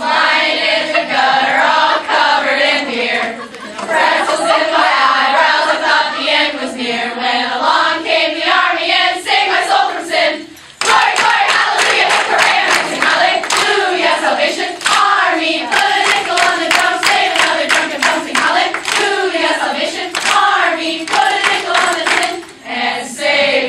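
A group of voices singing together, with many hands clapping through the song. The sound drops out briefly about eleven seconds in, then comes straight back.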